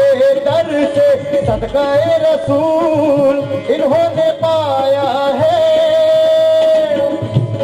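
Live qawwali: a male singer's voice, amplified through a microphone, over harmonium accompaniment. The melody winds through ornamented turns and settles on a long held note a little before the end.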